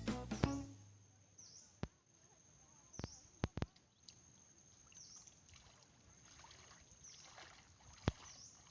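Small sea waves washing softly against the shore in gentle swells, with a few sharp clicks scattered through.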